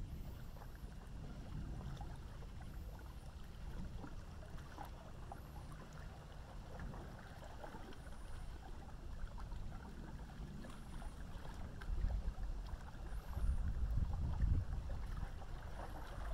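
Distant thunder rumbling low and continuously, swelling louder about twelve seconds in.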